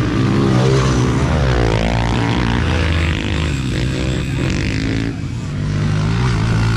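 Several small youth dirt bike engines revving and running as the riders pull away from the start, the pitch rising and falling in the first couple of seconds.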